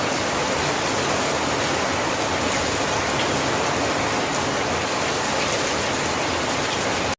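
Heavy rain falling, a steady loud hiss that cuts off suddenly at the end.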